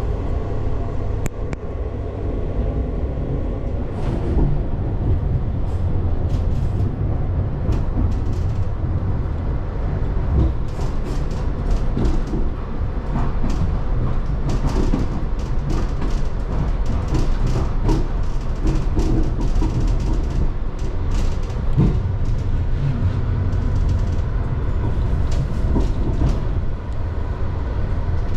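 EuroCity passenger train running along the line: a steady low rumble, with many short clicks and rattles setting in about four seconds in.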